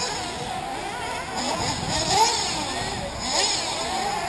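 Several small two-stroke glow engines of 1/8-scale nitro RC buggies buzzing at high revs, their pitch rising and falling as they accelerate and brake around the track.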